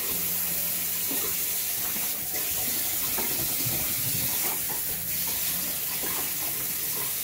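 Steady rushing of running water, with a faint low hum and a few light clicks.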